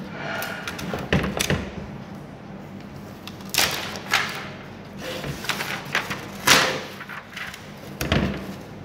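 Handling noise as a large paper sheet is lifted and moved about on a flat-screen monitor panel, in several short rustles, with a few dull knocks of the panel on the table, the loudest rustle about two-thirds of the way through.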